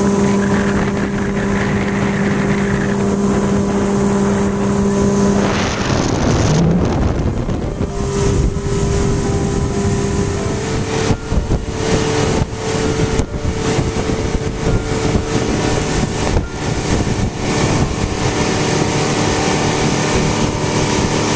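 Motorboat engine running at speed, with a steady hum, water rushing along the hull, and wind gusting on the microphone. The engine note shifts slightly about ten seconds in.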